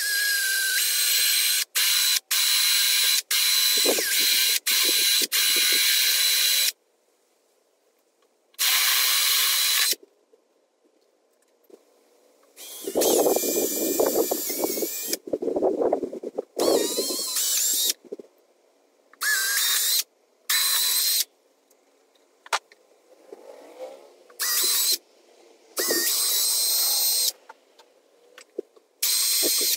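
Milwaukee Fuel brushless cordless drill run in many short bursts, its motor whine starting and stopping sharply, as holes are drilled through a PVC towfish body for the transducer mount. Around the middle a rougher grinding sound comes through as the bit cuts the plastic.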